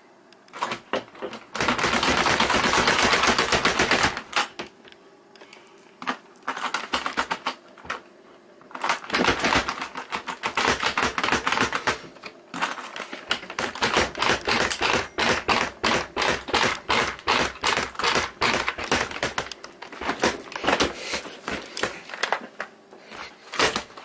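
Rapid rattling and knocking on a locked glass-paned door, a quick run of clicks and knocks. It is densest and loudest for about two seconds near the start, then comes back in long spells through the second half.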